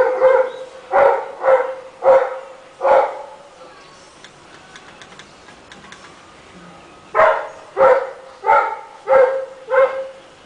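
Rottweiler barking in a loud series of deep, sharp barks: about five in quick succession, a pause of a few seconds, then five more at an even pace.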